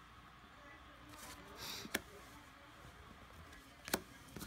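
Faint handling of Zatch Bell trading cards: cards sliding against each other as they are sorted and laid on a pile, with two sharp clicks about two seconds apart.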